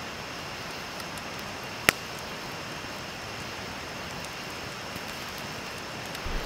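Small wood campfire with one sharp pop about two seconds in and a few faint ticks, over the steady rush of a creek.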